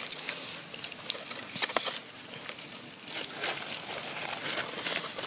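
Light rustling and crackling of dry leaf litter, with scattered sharp clicks over a steady high hiss.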